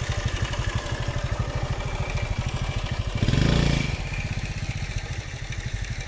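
A small engine running at a steady idle, a rapid, even putter, with a short louder surge a little past halfway.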